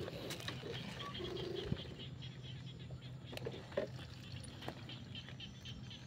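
Chorus of frogs calling: a constant low drone of many voices, with a rapid pulsing call repeating about four to five times a second and scattered single lower calls. A couple of sharp clicks, the loudest about two seconds in.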